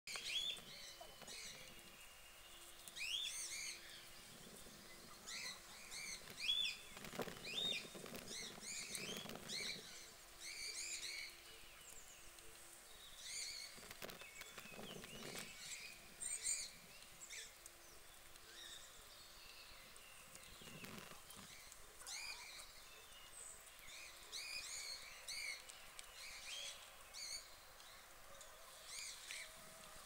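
Small birds chirping and tweeting in short, high calls, repeated over and over with brief gaps. A few soft, low rustling noises come in between.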